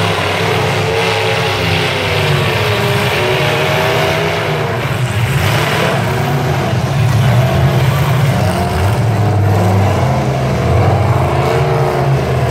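Several demolition derby pickup trucks' engines running loud and revving, their pitch rising and falling.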